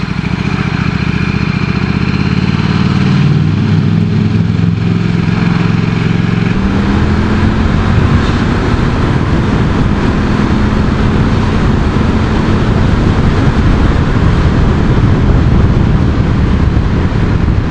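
KTM RC8 sport bike's V-twin engine pulling hard, its note stepping through several changes in the first six seconds or so, then running steadily at road speed with heavy wind rush over the helmet or bike-mounted microphone.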